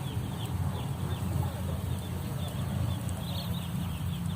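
A flock of broiler chickens chirping, many short falling peeps overlapping continuously, over a steady low hum.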